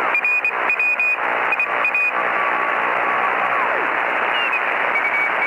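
Shortwave radio receiver hiss and static, cut off above a narrow band, with a run of Morse code beeps in the first two seconds. A few short whistles slide down in pitch, like carriers passing as a receiver is tuned.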